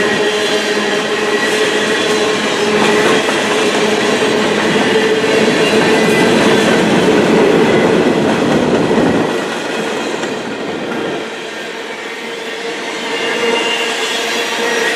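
Freight train's covered hopper cars rolling past at close range, steel wheels running over the rails with a steady high-pitched ringing squeal. The noise drops off about two-thirds of the way through and builds again near the end.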